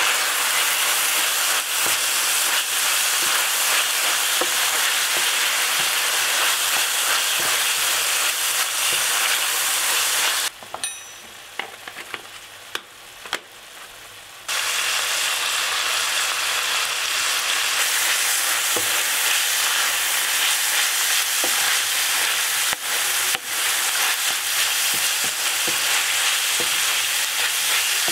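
Minced meat sizzling in a frying pan, a steady loud sizzle with occasional stirring clicks. About ten seconds in, the sizzle cuts out for roughly four seconds, leaving a few faint clicks, then comes back.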